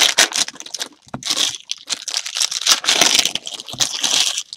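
Foil trading card pack wrappers crinkling and rustling in irregular bursts as they are handled.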